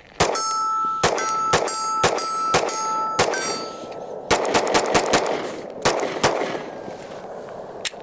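Gunshots from a 9mm Glock 43X pistol fired at a target. A steady string comes first, about two shots a second, then a quicker burst of shots around the middle, and a few more near the end. A steady ringing tone sounds under the first several shots.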